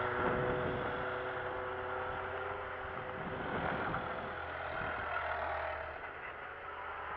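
Hill-climb cars' engines running at a distance, a steady engine note that eases off about six seconds in.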